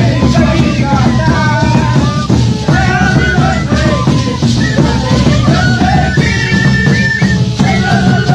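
Live Andean festival band: several large double-headed drums beaten with sticks in a steady beat, under a melody played together on small flutes.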